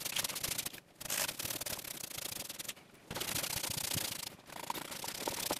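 A stain brush worked back and forth over wooden cabinet panels: rapid, scratchy brushing as a dark stain-and-poly is spread into the wood. The brushing comes in runs broken by three short, sudden gaps.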